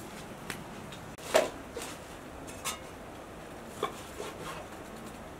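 A cleaver and knives cutting raw lamb on a wooden chopping board: a handful of scattered knocks and scrapes of blade on wood, the loudest about a second and a half in.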